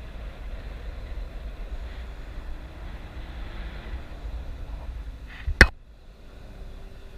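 Wind buffeting a camera microphone during a parasail flight, a steady low rumble. About five and a half seconds in there is one sharp knock, likely on the camera housing, and the wind noise is lower after it.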